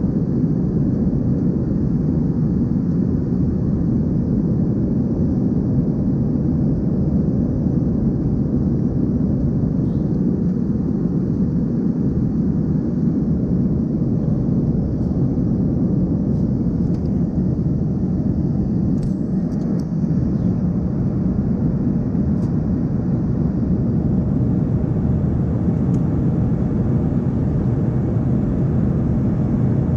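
Steady low rush of cabin noise inside an Embraer 145 in flight, from its rear-mounted turbofan engines and the airflow over the fuselage. A few faint ticks come in around the middle.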